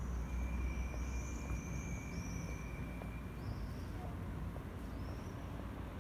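Street ambience: a low rumble of passing traffic, heaviest in the first two seconds, with birds chirping over it and a thin steady high tone lasting about three seconds near the start.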